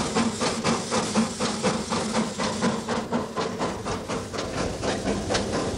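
Narrow-gauge steam locomotive working hard along the line, heard from the footplate: a steady rhythm of exhaust beats, about four a second, over a constant hiss of steam.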